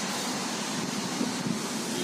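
Steady whooshing fan noise from a car's air-conditioning blower, even and unbroken.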